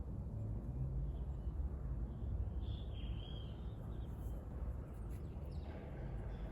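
A steady low rumble with a short bird call about halfway through.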